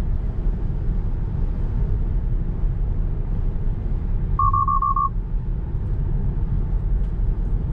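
Road and wind noise inside the cabin of a 2021 Tesla Model 3 cruising at about 50 mph: a steady low rumble, which a meter reads at about 59 decibels. Halfway through comes a quick run of five short beeps.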